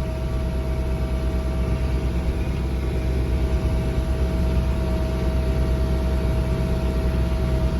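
Wacker Neuson skid steer's diesel engine running steadily at raised RPM, about 1920, driving the Virnig snowblower through the high-flow hydraulics, with a constant whine over the engine note.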